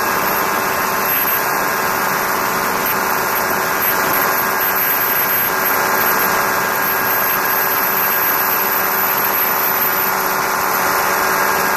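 Light aircraft engine, a Challenger II ultralight's, running steadily in cruise flight, with a strong even rush of wind over the camera mounted outside on the wing.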